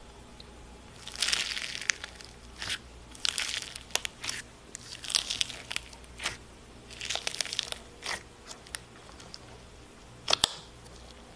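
Fingers pressing and poking into a jar of crunchy white slime packed with foam beads, giving bursts of crackling crunches with short pauses between presses.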